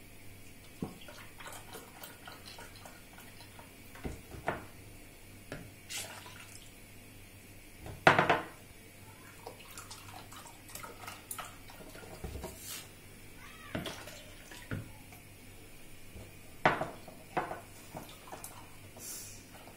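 Milk pouring from a carton in a thin stream into a glass, with scattered small knocks and clinks; one louder knock about eight seconds in.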